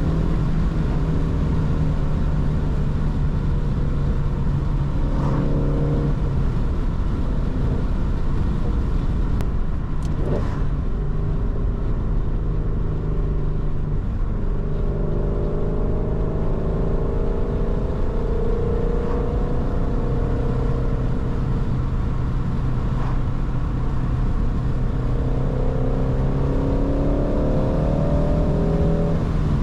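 Ford Shelby GT350's 5.2-litre flat-plane-crank V8 running under way. Its note steps to a new pitch several times and climbs a little near the end as engine speed changes.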